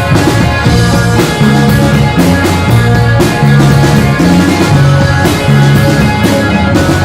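Live rock band playing loudly, with two electric guitars, electric bass and drum kit. The bass moves between held notes under regular cymbal hits.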